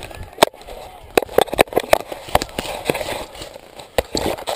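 Footsteps crunching through dry grass and twigs while branches scrape and snap against the camera. The result is a string of irregular sharp cracks over a rustling, brushing noise.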